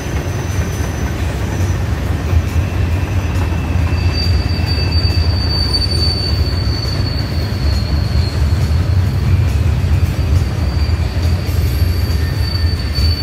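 Freight train of covered hoppers and gondolas rolling past: a steady low rumble of wheels on rail, with a thin high squeal held steady from about four seconds in.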